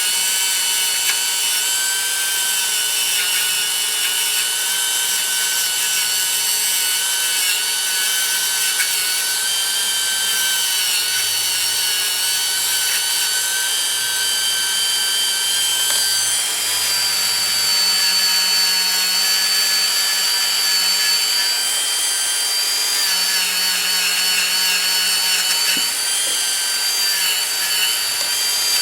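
Dremel rotary tool running with a blue plastic fiber abrasive wheel against a steel ratchet part: a steady high whine over a grinding hiss, its pitch shifting slightly as the part is pressed on and eased off.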